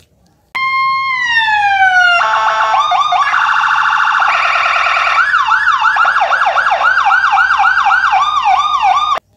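Toy police car's electronic siren sound effect. It opens with a falling tone, turns into a fast warble, then a quick up-and-down yelp about three times a second, and cuts off suddenly near the end.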